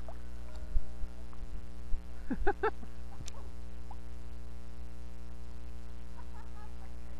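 A steady low hum, with a single thump about a second in and a few brief pitched sounds around two and a half seconds in.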